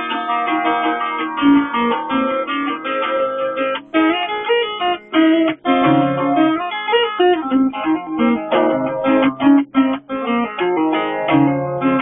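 Solo acoustic guitar playing an instrumental folk piece: a continuous run of picked notes and chords.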